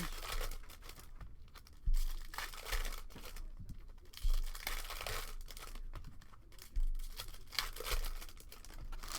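Trading-card pack wrappers being torn open and crinkled, with a few soft knocks about 2, 4 and 7 seconds in.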